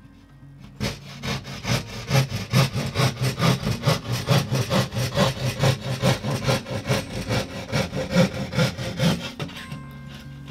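Pad saw cutting by hand through 15 mm plasterboard, in quick, even back-and-forth rasping strokes, about three to four a second, starting about a second in and stopping near the end.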